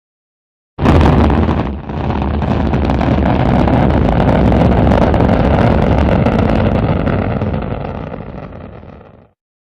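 Rocket launch: a heavy, low rumbling roar that starts suddenly about a second in, holds steady, then fades away near the end.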